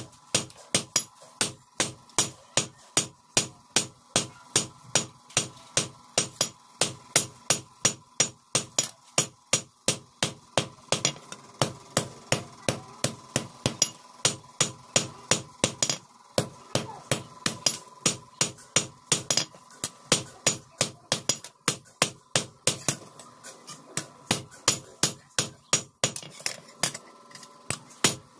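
Hand hammer striking a hot steel chopper blade on a railway-rail anvil in a steady rhythm of about two to three blows a second, each blow ringing. There are a couple of short pauses near the end.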